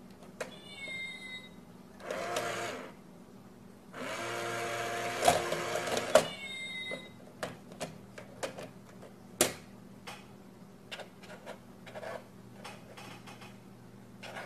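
Coin-stealing cat bank toy: its small electric motor whirs twice as the lid lifts and shuts, and its recorded meow plays near the start and again about six seconds in. After that come scattered light clicks and taps as a cat paws at the box.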